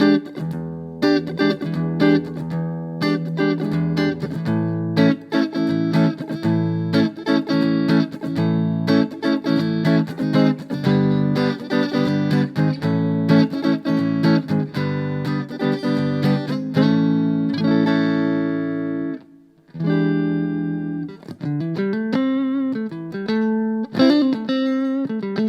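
Electric guitar played clean through a small practice amp, chords and single notes ringing together. It stops briefly about three-quarters of the way through, then comes back with notes sliding up in pitch.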